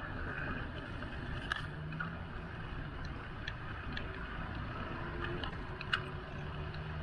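Bicycle riding noise: a steady low rumble of wind and tyres on the road, with a few sharp clicks and rattles, the loudest about six seconds in.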